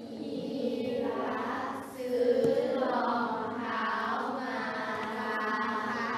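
A class of primary-school children reading a word problem aloud together in Thai, in unison, phrase by phrase with short breaks between phrases.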